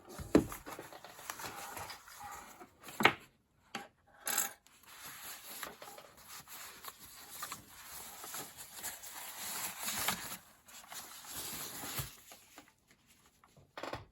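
Rubbing and rustling of packaging as a new mechanical keyboard is taken out of its box and unwrapped, with a few sharp knocks in the first few seconds.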